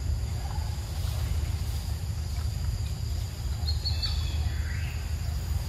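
Outdoor background noise: a steady low rumble with a faint high insect-like hum, and a brief bird chirp about four seconds in.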